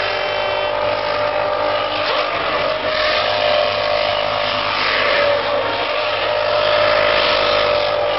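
A1GP single-seater race car doing donuts. Its V8 engine is held at high revs with a brief swing in pitch, over the hiss of spinning, smoking rear tyres.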